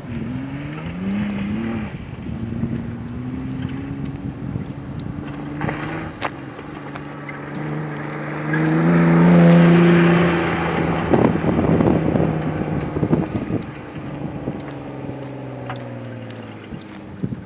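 Kia Sorento SUV's engine revving up and down under load as it drives through mud. Its pitch climbs twice early on, then builds to the loudest point about nine to ten seconds in, where a rushing noise joins it, and winds slowly down toward the end.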